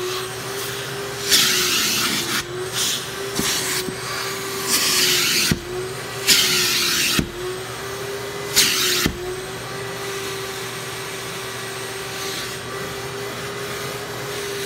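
Vacuum cleaner running with a steady motor whine as its crevice nozzle is worked over a cloth car seat. The rush of air through the nozzle swells in four short bursts over the first nine seconds, then stays even.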